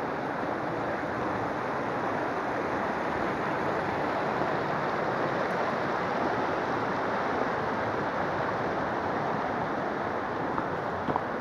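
Shallow mountain river rushing over rocks: a steady, even rush of water.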